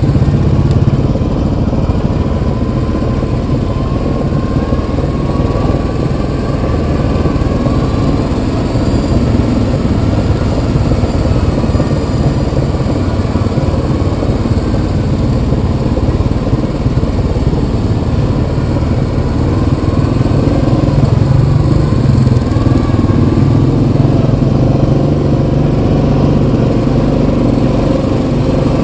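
Yamaha Kodiak 700 ATV's single-cylinder four-stroke engine running steadily under way, its pitch rising and falling a little as the throttle changes.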